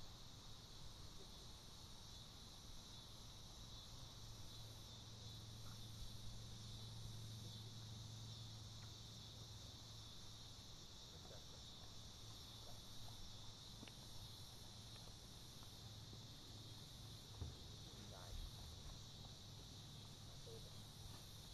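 Faint, steady, high-pitched chirring of insects in the grass, with a faint low hum underneath.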